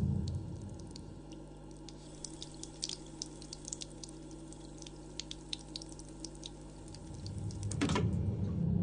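Water dripping: sparse, irregular sharp drips. A low rumbling drone fades out in the first second and swells back near the end, with a quick falling sweep just before it peaks.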